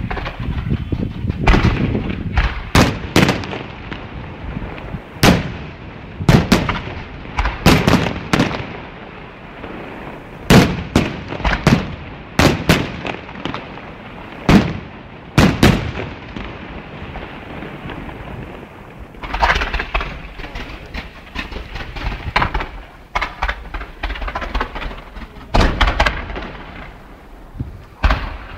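Fireworks display: aerial shells and petards going off in loud, sharp bangs at irregular intervals, a couple of seconds apart or in quick clusters, each trailing off in a rumbling echo.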